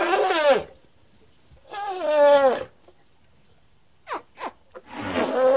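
Baby elephant calling: three cries that each slide down in pitch, about two seconds apart, with a couple of short squeaks just before the last one.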